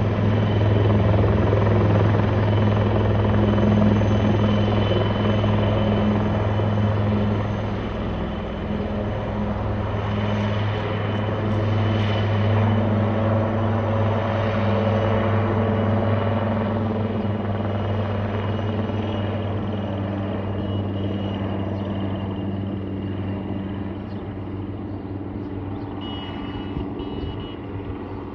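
Military helicopter's rotor and engine running with a steady low drone as it climbs away and flies off, growing gradually fainter over the second half.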